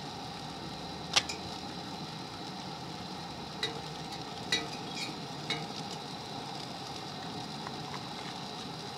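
Food sizzling in a pan, with a few sharp clinks of a utensil, the loudest about a second in.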